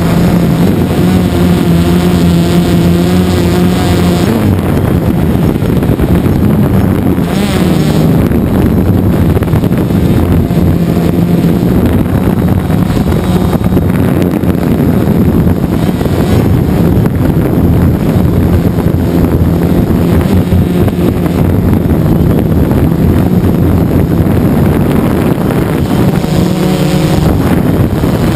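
DJI Phantom 2 quadcopter's motors and propellers buzzing steadily, heard up close from the camera mounted on the drone, over a constant rush of air. The hum's pitch wavers now and then as the drone turns.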